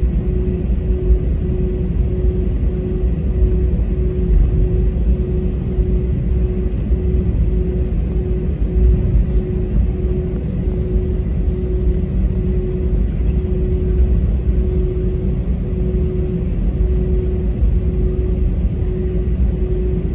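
Steady low cabin rumble of an Airbus A320-232 taxiing, with a faint tone pulsing on and off about once a second.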